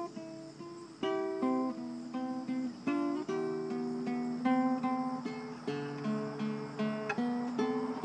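Nylon-string classical guitar played solo with the fingers: a melody of separate plucked notes over lower held bass notes, each note ringing and fading.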